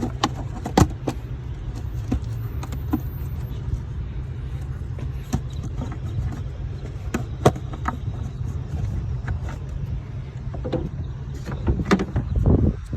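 Scattered sharp plastic clicks and knocks from the engine air filter being seated and the airbox housing and clips handled, over a steady low rumble.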